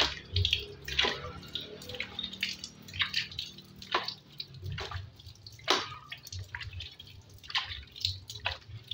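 Water splashing and dripping in irregular splats, one or two a second, as a motorcycle chain and sprocket are rinsed clean.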